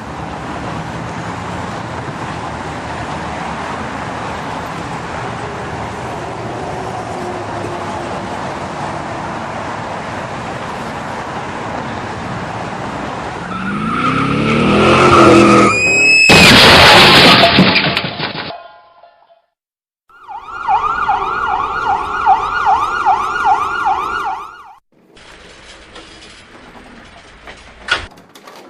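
Car-crash sound effect: a car driving steadily, then tyres screeching as it brakes, and a loud crash of impact with breaking debris. After a moment's pause, an emergency siren wails rapidly up and down for a few seconds.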